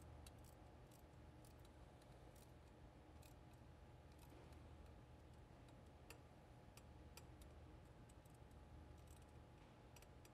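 Faint, scattered clicking of a socket wrench's ratchet as a manifold flange bolt on a jet engine lubrication unit is run down, over a low steady hum.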